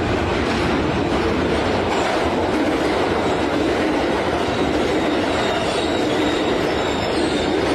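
New York City subway F train heard from inside the car, running steadily between stations with a constant rumble and rail noise from the wheels on the track.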